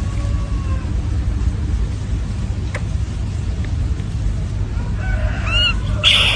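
Steady low rumble, with a few short, pitched bird calls near the end.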